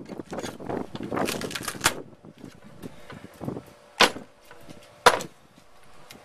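A blade cutting and scraping through resin-wet fiberglass cloth along a PVC pipe, a dense run of scratchy crackling for about two seconds. Two sharp knocks follow, about a second apart.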